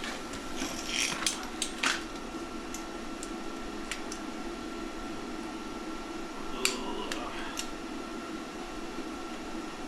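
A steady low mechanical hum with a faint constant tone, broken by a few light clicks and taps, about a second in and again near the seven-second mark.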